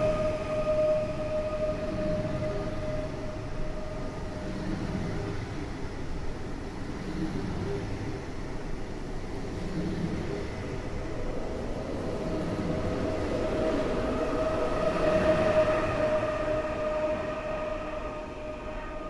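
PESA Dart electric multiple unit rolling out along the platform and away, its wheels rumbling and clattering in a slow, even beat over a steady high whine. The sound swells about three-quarters of the way through and then fades as the train draws off.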